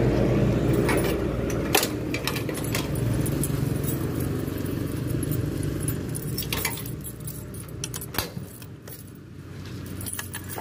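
A bunch of metal keys on rings and a clip jangling as it is handled, in short scattered rattles. Underneath, a low steady hum fades away about two thirds of the way through.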